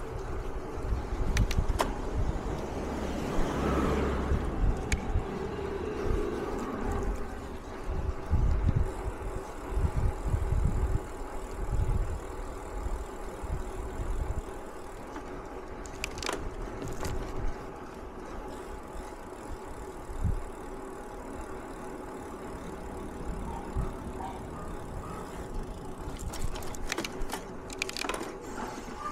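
A vehicle running steadily: a constant hum holding several fixed tones, with irregular low rumbles in the first half and a few sharp clicks.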